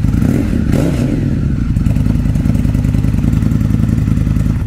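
Indian FTR1200's V-twin engine running with its muffler removed, exhaust passing only through the pre-muffler, giving a nice and deep grumble. It is revved briefly in the first second and a half, then settles back to a steady idle.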